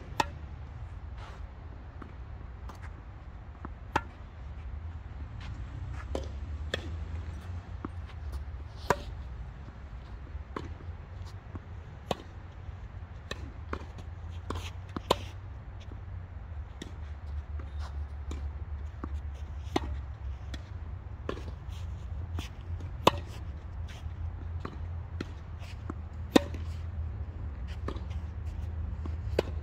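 Tennis balls struck by racquets and bouncing on the court in singles play: a run of sharp pops, the loudest about every three to four seconds with fainter ones between, over a steady low rumble.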